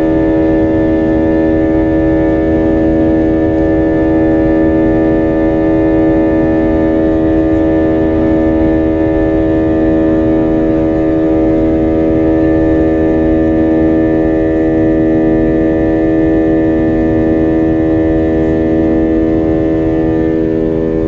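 Steady droning hum of an airliner heard from inside the cabin: one strong low tone with many overtones, and a fainter lower tone that comes and goes every couple of seconds.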